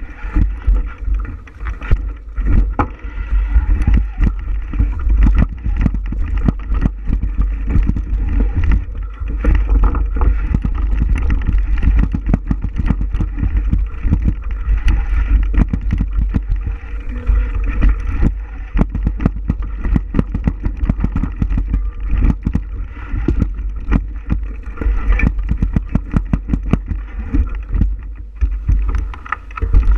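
Ride noise from a camera on a moving bicycle: a constant low rumble of wind on the microphone, with frequent sharp knocks and rattles from riding over a rough trail surface.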